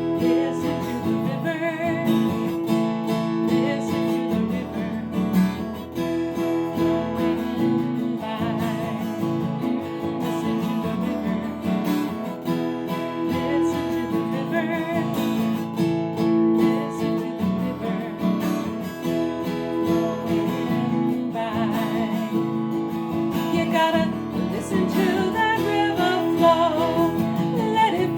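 Acoustic guitar with a partial capo on the second fret, strummed steadily through a simple chord progression built on G, A minor, C and D shapes.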